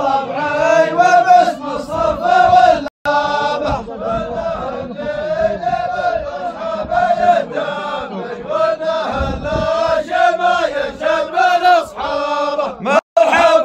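Group of men chanting a zamil, the Arabian tribal chanted poem, in a steady melodic chant. The sound cuts out for a split second about 3 s in and again near the end.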